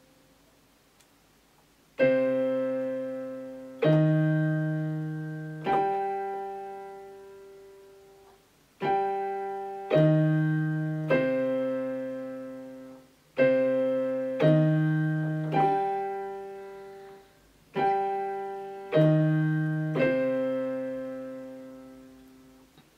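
Yamaha YPT-255 portable keyboard on a piano voice, playing chords in C minor. Twelve chords are struck in four groups of three, starting about two seconds in, and each is left to ring and fade before the next.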